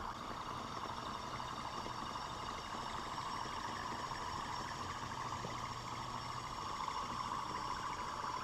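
Small homemade Stirling engine running steadily on spirit-lamp heat: an even, soft mechanical whir from its spinning flywheel, pistons and connecting rods.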